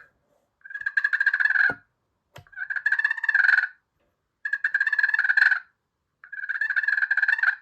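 Pot-style friction turkey call worked with the striker dragged at very light pressure in straight lines, sounding four purrs. Each is a fluttering rolling note of about a second, with short gaps between. This is the turkey's purr, the call of a content, relaxed bird.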